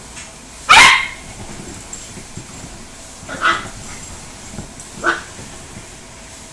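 Small dogs barking in play: three short barks, the first about a second in and by far the loudest, then two quieter ones a couple of seconds and about four seconds later.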